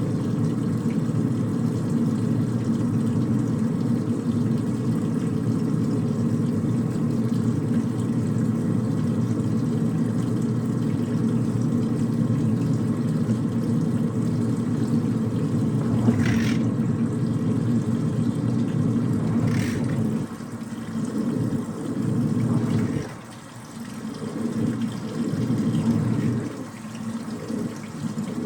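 Washing machine on its spin cycle: the spinning drum gives a steady low hum, with two short knocks about two-thirds of the way through. After that the sound dips and surges unevenly.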